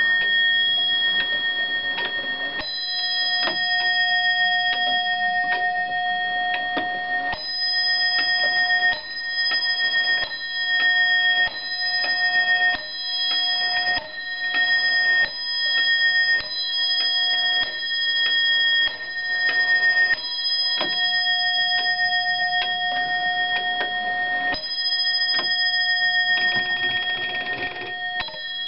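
Antique Dutch Friese wall clock's alarm ringing: its hammer rapidly striking the bell in one continuous ringing that swells and fades in uneven pulses.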